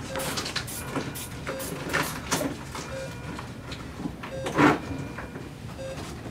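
A patient monitor gives a short low beep about every one and a half seconds, a slow pulse rate of about 40 a minute: the bradycardia found in this patient, heart rate in the 40s. Under it are rustling and handling noises from the blood-pressure cuff and bedding, with a louder short burst of noise about four and a half seconds in.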